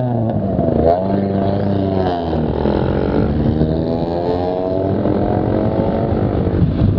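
Modified Maruti Suzuki Esteem's engine revving through a loud aftermarket exhaust. It gives a couple of quick rev blips in the first two seconds, then a long, steady climb in revs that falls away near the end.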